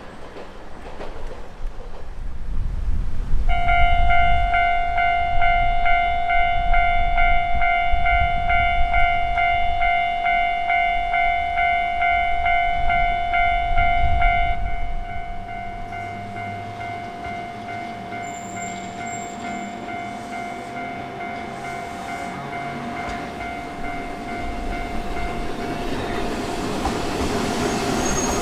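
Japanese level-crossing warning bell sounding a steady electronic ding, starting a few seconds in and dropping to a quieter level about halfway through. Meanwhile a Hankai Line tram rumbles past, and the rail noise builds again near the end.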